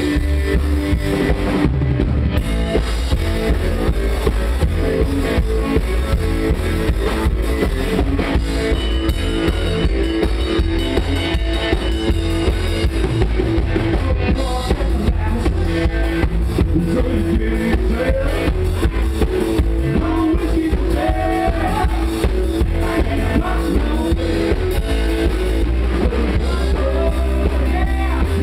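A live country-rock band playing at a steady beat: upright double bass, drum kit and a white hollow-body electric guitar.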